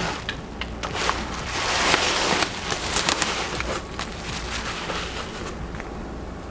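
Plastic bubble wrap crinkling and crackling as it is pulled out of a cardboard box and unwrapped, loudest about two seconds in and dying down after about four seconds.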